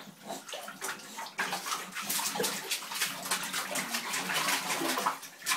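Bulldog lapping shallow water in a bathtub: quick, rhythmic wet laps, several a second, starting about a second and a half in.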